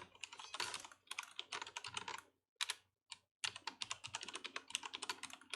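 Computer keyboard typing: quick runs of key clicks, a password being entered, with a brief pause about two and a half seconds in before the typing resumes.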